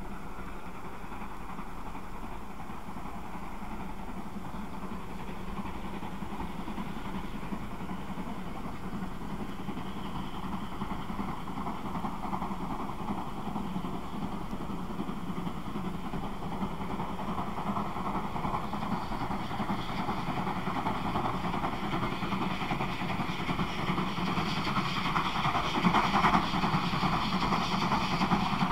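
DB class 050 2-10-0 steam locomotive working a train, its exhaust getting steadily louder as it approaches, loudest near the end.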